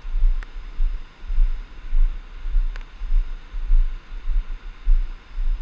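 Storm wind buffeting the microphone in rapid, uneven gusts, over a steady hiss of wind-driven rain and surf.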